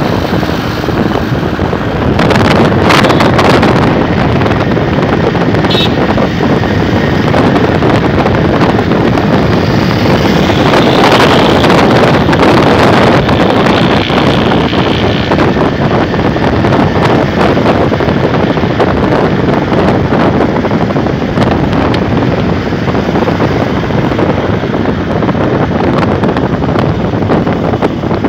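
Loud wind rushing over a phone's microphone at the open window of a moving car, mixed with tyre and road noise; it grows louder about two seconds in.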